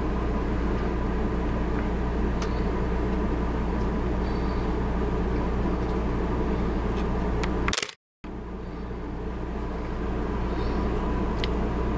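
A steady low mechanical hum with even overtones, with a few faint ticks and chirps over it. It cuts out briefly about eight seconds in, then comes back.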